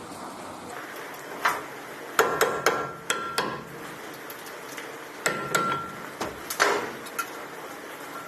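Hammer blows on steel, sharp metallic strikes with a ringing note, coming in quick clusters with pauses between: knocking the outer tie rod end's ball joint loose from the steering knuckle.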